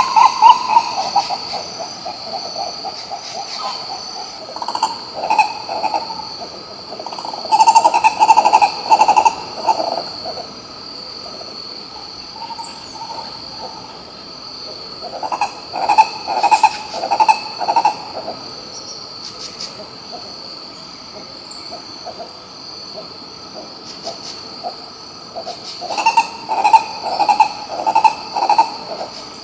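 Green ibis calling in bouts of rapid, repeated low notes, each bout lasting two or three seconds and coming every eight to ten seconds. A steady, high insect drone runs underneath.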